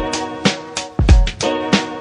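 Background music with a steady, funky drum beat and sustained chords.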